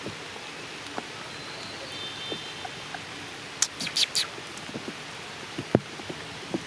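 Steady patter of rain with scattered louder drops, and a quick run of sharp crackles a little under four seconds in.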